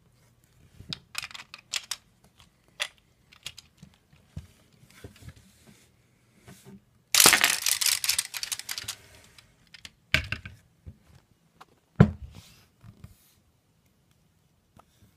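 Plastic Lego pieces being handled and knocked on a wooden table: scattered clicks, then a sudden dense rattle lasting about two seconds a little past the middle, then two sharp knocks, the second the loudest.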